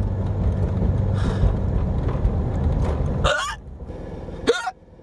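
A person hiccuping, two sharp hiccups about three seconds in and again a second later, part of a persistent bout of hiccups that won't stop. Before the first hiccup a steady low vehicle hum fills the background, then drops away.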